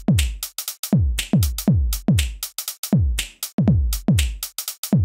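Electronic background music with a drum-machine beat: deep kick drums that drop in pitch, about two a second, with crisp hi-hat and snare strokes between them.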